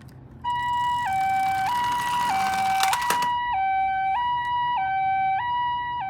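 Toy ambulance's electronic two-tone siren, the Japanese-style hi-lo "pii-poo" alternating evenly between a higher and a lower tone, each held about half a second. A noisy hiss runs under it for the first half, with a click near the middle.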